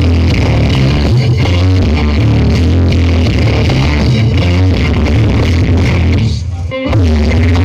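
Loud music with a heavy, steady bass played through a large CLA-box sound system. The music thins out briefly about six seconds in, then the bass comes back.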